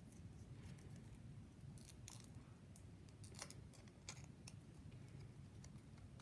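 Faint handling of paper and a sticky glue dot being peeled away: a scattering of light clicks and rustles over quiet room tone.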